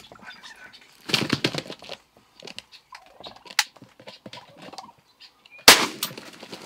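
A wild turkey gobbler gobbles loudly for about a second, a sharp click follows a couple of seconds later, and near the end a single shotgun shot goes off, the loudest sound, dropping the bird.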